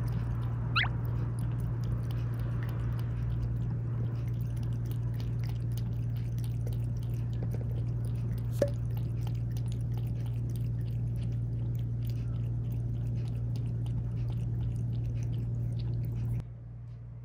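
A domestic tabby cat lapping water from a ceramic bowl in quick, repeated laps, over a steady low hum. The lapping stops shortly before the end as the cat lifts its head.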